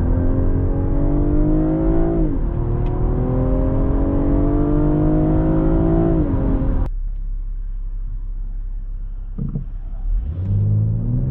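2020 BMW M340i's 3.0-litre turbocharged straight-six heard from inside the cabin in SPORT+, pulling hard in rising pitch, with a quick upshift of the eight-speed automatic about two and a half seconds in and a second pull after it. About seven seconds in the throttle is lifted and the engine drops to a quiet low run, then it starts accelerating again near the end.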